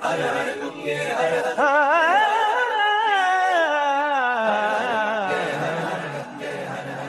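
Background Hindi devotional song about the Ganga: a solo voice sings one long wavering phrase that begins about one and a half seconds in and sinks lower and fades toward the end, over soft accompaniment.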